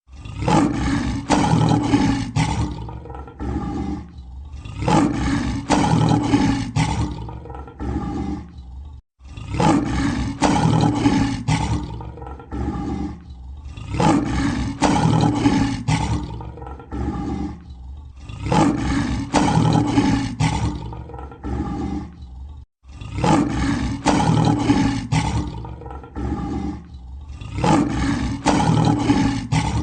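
Lion roaring: loud roars in groups about every four to five seconds, each trailing off more quietly. The same roaring sequence repeats after short breaks about nine and twenty-three seconds in.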